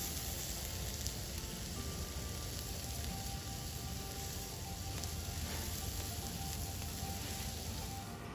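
Slices of meat searing on a hot griddle plate, a steady fat-spitting sizzle.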